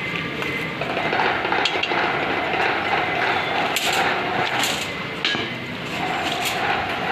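Steel reinforcing rods clinking and scraping against each other and the concrete as they are dragged and bent by hand, with a few sharp metallic clinks about four, four and a half and six and a half seconds in.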